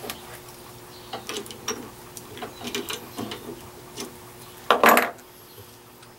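Drill press chuck being tightened on a small pilot drill bit: a run of light metallic clicks and rattles, with a louder clatter about five seconds in.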